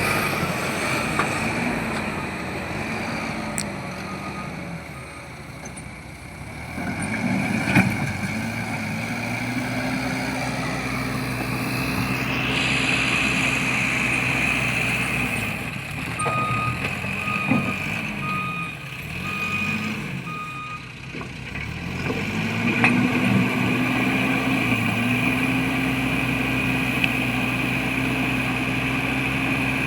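Diesel engine of a Case 770 backhoe loader revving up and easing off in repeated cycles as the machine works, under a steady high-pitched tone. A vehicle's reversing alarm beeps about five times in the middle.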